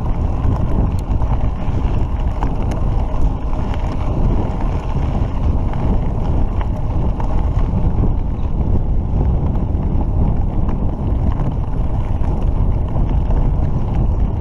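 Steady wind noise buffeting the camera's microphone on a moving mountain bike, mixed with the rumble of tyres rolling over a dirt and gravel road.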